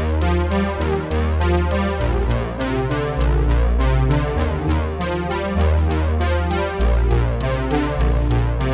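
Electronic background music: synthesizer chords over a steady bass and a drum-machine beat.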